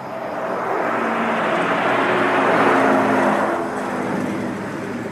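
Audience applauding, swelling to a peak partway through and then dying away.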